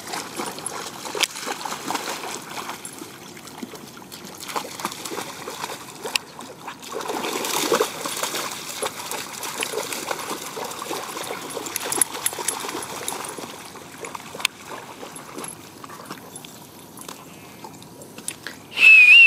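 Dogs wading and splashing in lake shallows: water sloshing and trickling with scattered small splashes, busiest about seven to eight seconds in. Just before the end a loud, high-pitched squeal cuts in.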